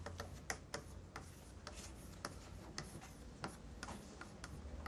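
Chalk writing on a blackboard: faint, quick, irregular taps and scratches as characters are written.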